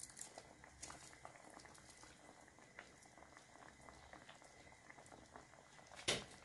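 Stew gravy boiling in a pot, with faint steady bubbling and small pops, and one sharp knock about six seconds in.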